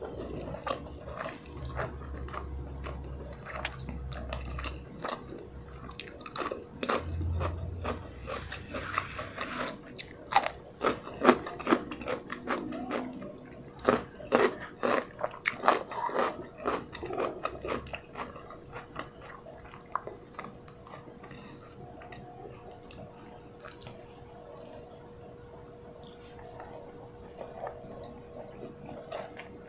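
Close-miked chewing of a mouthful of rice and fried chicken with sambal: wet mouth clicks and smacks, busiest in the middle and sparser near the end. A faint steady hum runs underneath.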